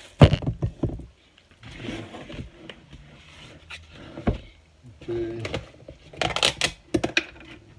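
Kitchen handling noise: a seasoning shaker shaken and knocked over a plastic bowl of raw chicken wings, giving sharp clicks and rattles in the first second. Scattered rustles and a single knock follow, then the loudest clatter near the end as a utensil is pulled from a dish drainer.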